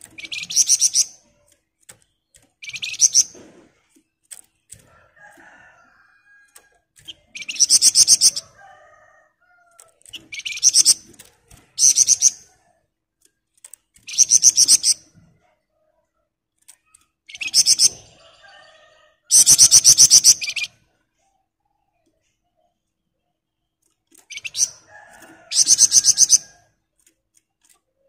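Caged flamboyan songbird giving a series of loud, harsh, very rapid rattling trills ('ngebren'), each about a second long, with short pauses between. There are about nine in all, and the longest and loudest comes about two-thirds of the way through.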